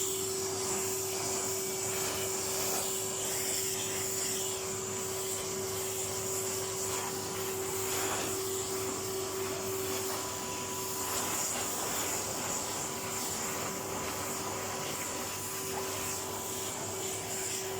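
Vacuum cleaner running steadily over a silk carpet, a constant motor hum with a high whine on top.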